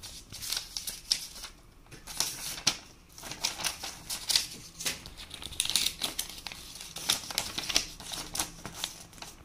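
Sheets of paper rustling and flicking as a router's printed manual, leaflets and warranty card are handled and shuffled, in quick, irregular crisp flutters.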